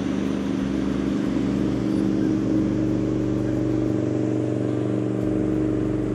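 Sheriff's motorboat running at speed on the river, its engine a steady drone.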